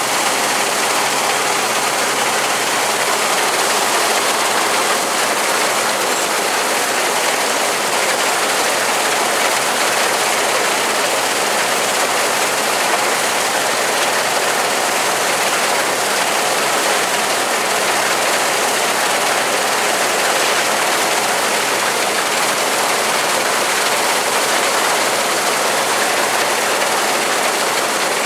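Rostselmash Vector 420 combine harvester running steadily while cutting and threshing grain: an even, loud mechanical noise with a faint low engine hum underneath.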